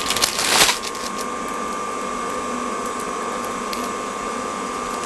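Brief rustling in the first second, then a steady mechanical hum with a faint high whine running evenly underneath.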